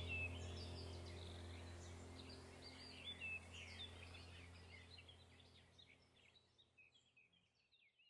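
Birdsong: many short chirps and trills over a low steady drone, the whole soundtrack fading out gradually to silence near the end.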